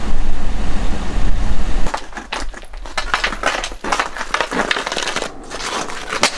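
A steady low rumble for about two seconds, then hockey skates scraping and crunching over a thick sheet of ice while a stick knocks a puck around, in quick irregular scrapes and clicks.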